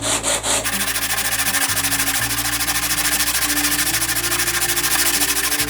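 Sandpaper scrubbing fast against a cast aluminium belt buckle, an even rasping rhythm that starts about half a second in and stops just before the end.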